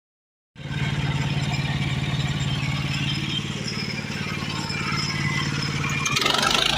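An engine running steadily with a fast, even pulse, starting after a brief silent gap; about six seconds in a louder rasping noise rises over it.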